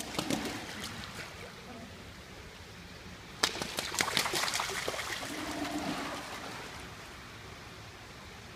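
Water trickling and splashing in a seabird exhibit pool, with a brief flurry of splashes about three and a half seconds in. Faint voices murmur in the background.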